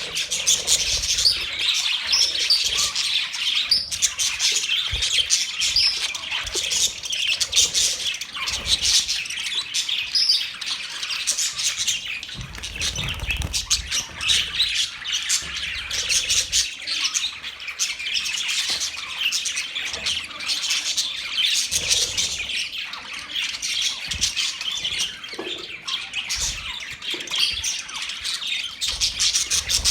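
Budgerigars chirping and warbling nonstop, many overlapping high chirps and squawks.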